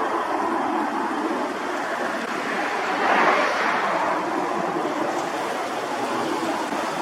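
Jet roar from a Cessna Citation Latitude's twin turbofan engines on departure: a steady rushing noise that swells about three seconds in.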